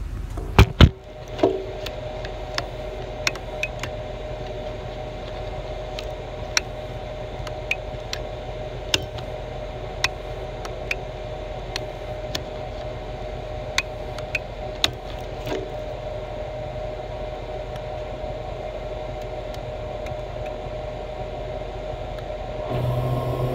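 Duramax diesel truck engine idling, heard muffled with the microphone covered: a steady hum with a low drone, broken by scattered ticks and knocks of the phone being handled. Two loud clicks come about half a second in, and near the end the sound opens up and grows louder.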